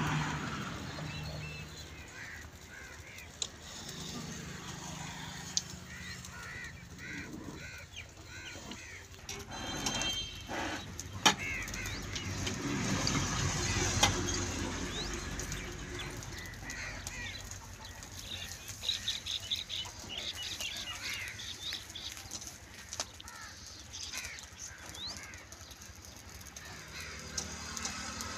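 Small birds chirping and a hen clucking, with a few sharp knocks now and then.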